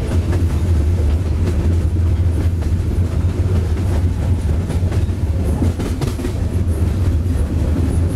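Moving freight train heard from aboard a car: a loud, steady low rumble with scattered clicks and clanks from the wheels and cars.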